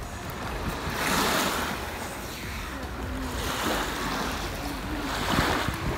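Small waves washing up on a sandy beach, a hiss that swells three times, about a second in, midway and near the end.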